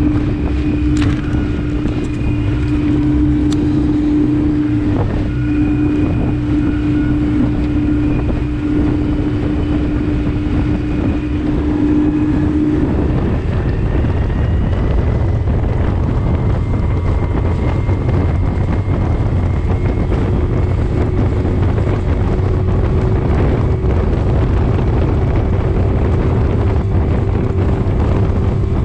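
A 15 hp tiller outboard motor running flat out on a small rigid-hull inflatable at planing speed, with wind buffeting the microphone. Its steady note steps up in pitch about halfway through as the boat gathers speed toward its top speed of about 27 mph.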